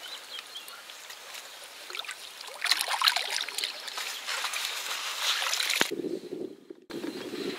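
Water splashing and dripping as a carp is released back into the lake, the splashing strongest in the middle. About six seconds in it cuts abruptly to a low steady rumble.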